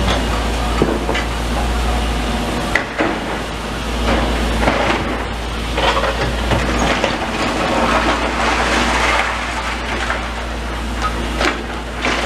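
Demolition machinery working: a steady low engine rumble under repeated irregular knocks and clattering of broken masonry and debris.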